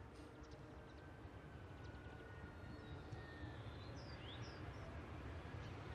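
Faint low rumble of a narrow-gauge steam train running at a distance, growing slightly louder near the end as it approaches. Small birds chirp a few times over it.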